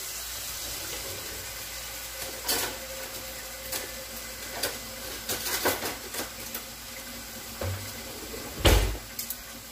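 Floured beef chunks sizzling in a stainless skillet on an electric stove: a steady hiss with scattered pops and crackles, and one heavier thump near the end.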